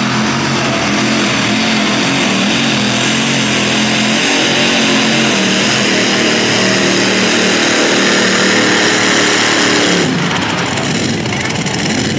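Modified pulling tractor's supercharged engines running at full throttle while dragging the weight sled, the pitch climbing slowly. About ten seconds in the engine note changes abruptly and turns rougher.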